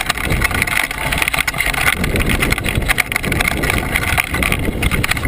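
Mountain bike riding down a rough dirt and stone trail, rattling and clattering over the bumps against a steady rushing noise.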